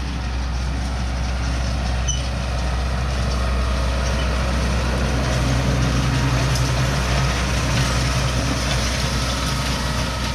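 Tractor engine running steadily as it pulls a hay rake through the rows, growing louder as it draws nearer around the middle and easing slightly near the end.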